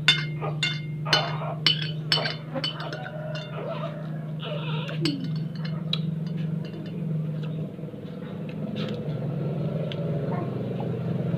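Metal spoon clinking against a glass bowl, about two sharp clinks a second for the first few seconds, then only a few scattered ones.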